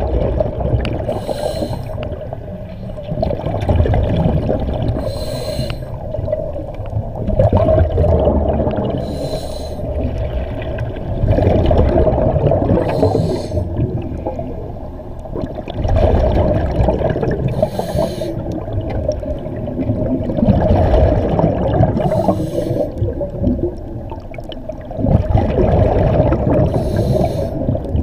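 Scuba diver breathing through a regulator: a short hiss on each inhale, then a longer gurgling rush of exhaled bubbles, about six or seven breaths at a steady pace of one every four to five seconds.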